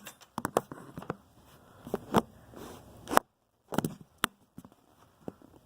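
Scattered clicks and crackles of something being handled close to the microphone, with sound cutting out completely for about half a second around three seconds in.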